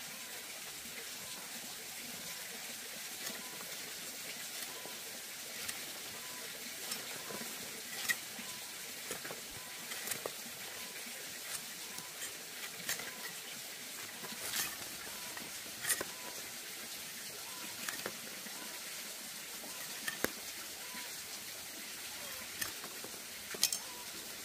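Thin bamboo strips clicking and rustling as a fish-trap basket is woven by hand: irregular sharp ticks and taps of varying loudness over a steady hiss.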